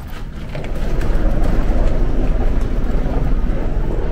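Airport check-in hall background noise: a steady low rumble that swells up about half a second in and holds.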